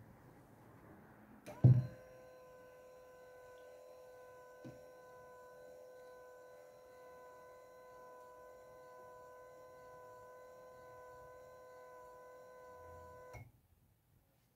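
LINACT-B2 12 V DC linear actuator's motor and gearbox running with a steady whine as the rod moves in. A loud click starts it about a second and a half in, and it cuts off suddenly with a click near the end.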